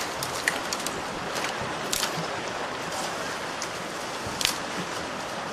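Creek rapids rushing, a steady hiss of moving water, with a few short sharp knocks, the loudest about two seconds in and near the end.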